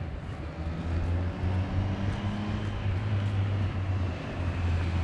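Wind buffeting the camera's microphone while walking outdoors: an uneven low rumble that swells and dips, over a steady noisy haze.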